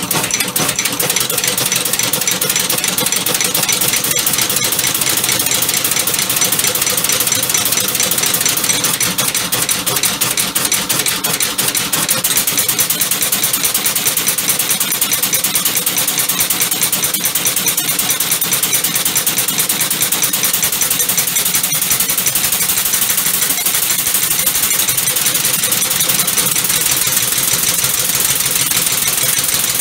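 Homemade five-cylinder crankshaft compressed-air engine running steadily on the bench, a rapid even clatter with a strong steady hiss.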